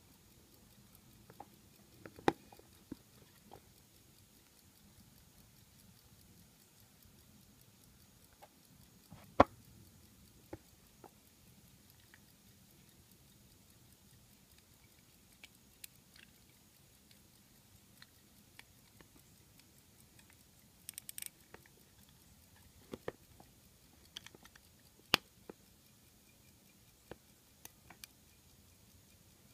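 Scattered sharp clicks and light knocks from a gold-filled chronograph pocket watch being handled. They come at uneven intervals, with a quick run of several clicks about two-thirds of the way through.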